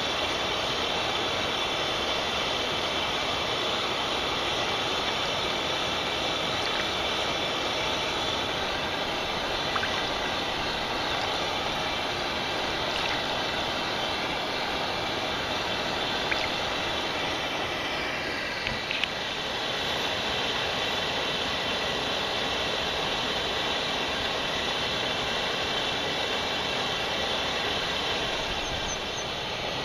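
Mountain stream water rushing steadily, with a few faint clicks about halfway through.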